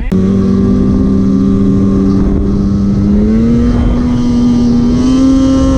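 Polaris 850 Patriot two-stroke twin snowmobile engine running steadily under way, its note stepping up slightly about two seconds in and again near the end, over a rough low rumble.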